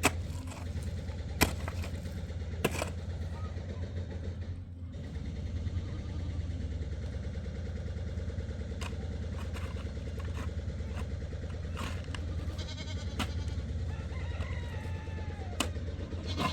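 Chickens calling, with a rooster-like falling call near the end, over a steady low hum and a few sharp knocks.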